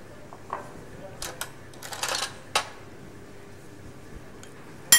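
Metal spoon knocking and scraping in a ceramic bowl of chicken filling, a few light taps and a short scrape, then one sharp ringing clink near the end.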